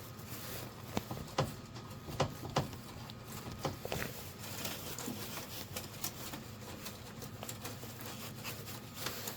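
Irregular light clicks and rustles of fire alarm wire being pushed back up and handled by hand.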